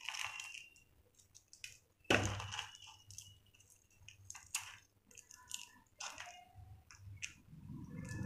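Crisp, dry food being crumbled and crushed by hand: scattered crunching and crackling, with one louder crunch about two seconds in.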